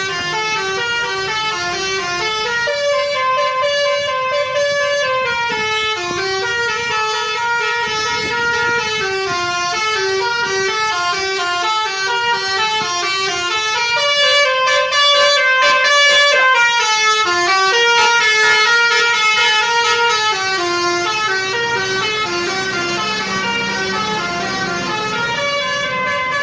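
Basuri V1 telolet multi-tone bus horn playing a winding, snake-like melody. It steps rapidly from note to note, several notes a second, and repeats its phrase.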